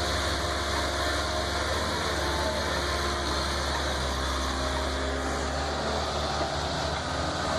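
Heavy diesel engine of logging machinery running steadily at a constant speed.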